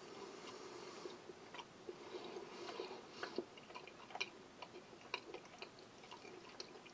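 Faint chewing of dry rye bread, with small irregular mouth clicks scattered through it.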